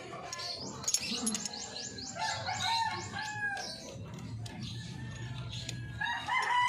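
A rooster crowing twice, the second crow near the end, over a rapid run of high chirps from small birds about half a second in.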